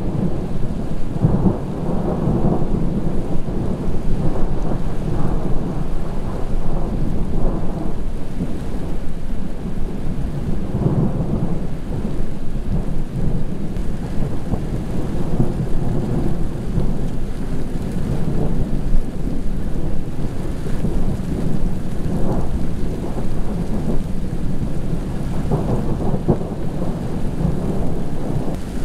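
Rolling thunder from a supercell thunderstorm, rumbling on without a break and swelling louder at irregular moments.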